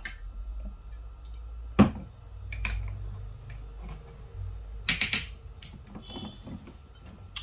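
Glass wine bottle set down on a wooden tabletop with one sharp knock about two seconds in, then a short cluster of knocks and handling clatter about five seconds in.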